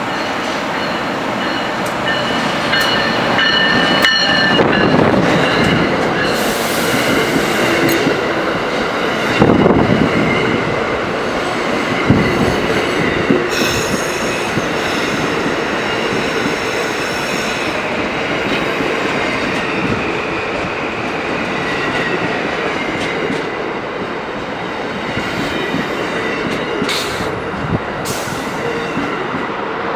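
Amtrak Northeast Regional passenger train passing close at speed: a continuous rush of wheels on rail, with high, thin wheel-squeal tones and a few sharp knocks over the rail joints.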